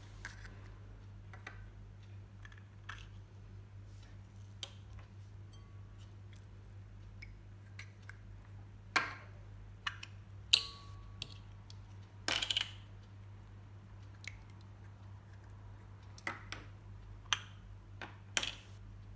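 Small plastic slime tubs being squeezed, tapped and handled as slime is emptied into a glass bowl: scattered soft clicks and squishes. A few sharper clacks come in the second half.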